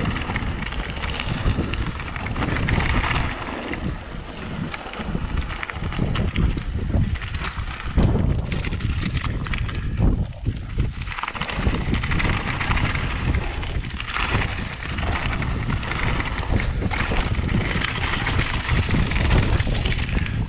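Wind buffeting the camera microphone over the noise of a mountain bike's knobbly tyres rolling and crunching across a loose slate and gravel trail at speed. The rumble swells and dips unevenly with the terrain.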